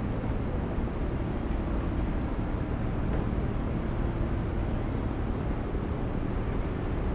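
Steady low outdoor rumble of city waterfront ambience, with a faint continuous machine-like hum under it and no distinct events.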